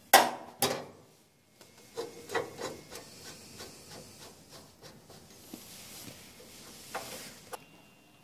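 Two sharp knocks, then a series of scraping, rubbing strokes from the router mount of an acrylic edge beveling machine as its height-adjustment handle is turned to set the router bit height.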